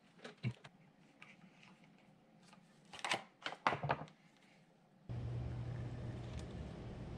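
A heat gun and a plastic parts box being set down on a wooden workbench: a few light knocks, then a louder cluster of clunks and rattles about three seconds in. About five seconds in, a steady low hum starts abruptly.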